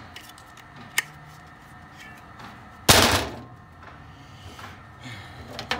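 A caulking gun loaded with a caulk tube is set down onto a diamond-plate steel table with one loud metallic thunk about three seconds in. A single sharp click comes about a second in.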